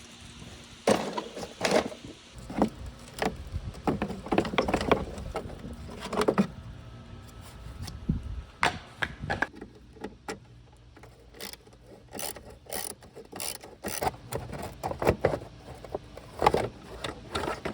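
Irregular clicks, knocks and clatter of hand tools and metal parts as the drive belt is worked back onto a self-propelled push mower, with a quicker run of sharp clicks about two-thirds of the way through.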